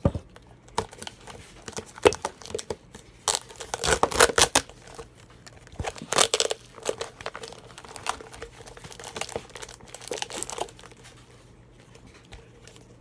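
Duct tape and plastic being handled, with crinkling, crackling and ripping in irregular bursts that thin out near the end.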